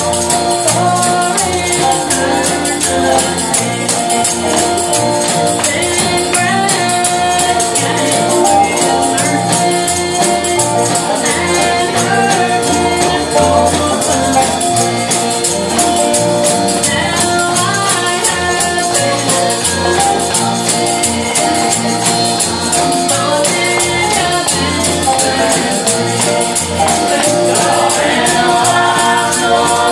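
Live gospel music: a tambourine shaken in a fast, steady rhythm over a bass line and held chords, with voices singing at times.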